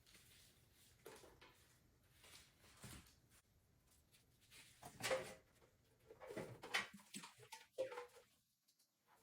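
Faint handling noises: scattered soft knocks and rustles, busiest in the second half.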